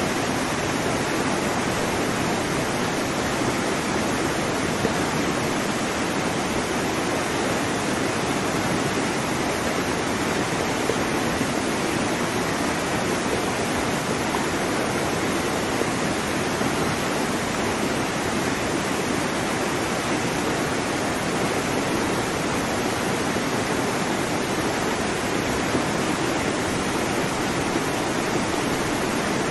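Steady rush of water, an even hiss with no rise and fall of single waves breaking.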